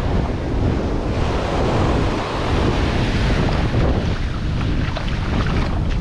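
Small ocean waves breaking and washing up the sand, the hiss of the surf swelling about a second in and easing off near the end. Wind buffets the microphone with a steady low rumble underneath.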